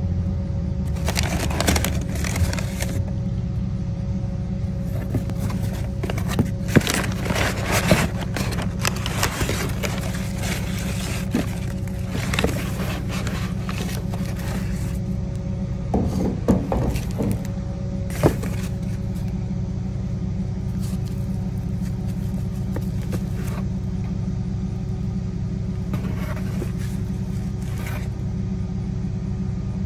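Crumpled brown packing paper and a cardboard box rustling and crinkling in irregular handfuls as a new starter motor is unpacked, over a steady low rumble.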